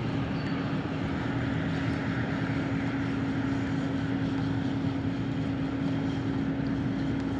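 A steady mechanical drone with a constant low hum that holds one pitch throughout, over a wide noisy background.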